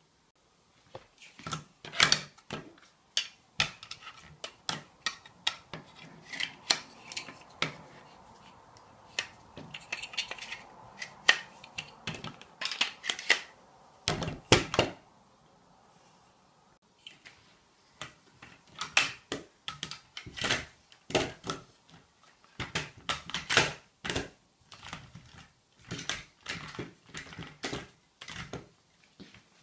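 Parts of a dog bowl stand being handled and fitted together by hand: an irregular run of hard clicks, knocks and clinks from the black square-tube legs and the bag of metal bolts and plastic star knobs.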